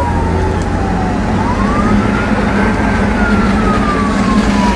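Emergency vehicle siren wailing: its pitch falls, rises over about a second and a half, then falls slowly again. It sounds over steady background noise and a low hum.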